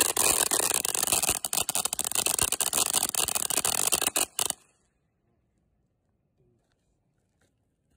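Ground fountain firework spraying sparks with a loud hiss and dense crackling, which cuts off abruptly a little past halfway.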